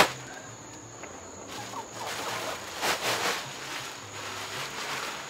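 A plastic trash bag rustling as it is emptied and food scraps spill out of it, with a sharp knock at the very start and the loudest rustle about three seconds in.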